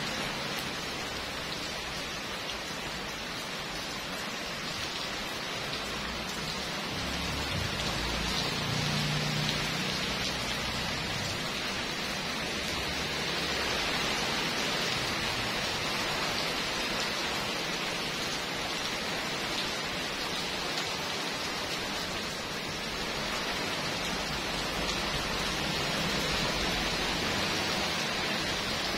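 Heavy rain falling on a paved street and the roofs and awnings around it: a dense, even hiss that swells and eases slightly. A brief low hum sounds about a third of the way in.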